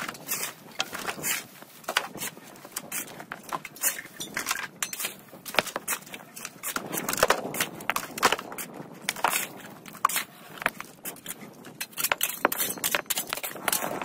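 Old fired bricks knocking and clinking against each other as they are picked up, moved and set down by hand, with loose rubble and dry debris crunching and rustling. The knocks are sharp and irregular, at times several a second.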